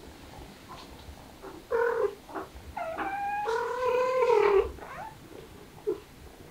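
A cat meowing: a short call about two seconds in, then a longer drawn-out call lasting well over a second.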